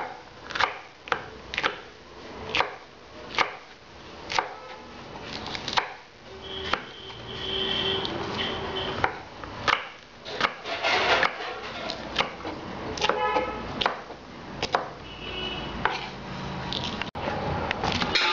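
Large kitchen knife slicing green capsicum on a wooden chopping board: a series of sharp knocks as the blade strikes the board, about one to two a second, coming closer together in the second half. Near the end it changes to shredding cabbage.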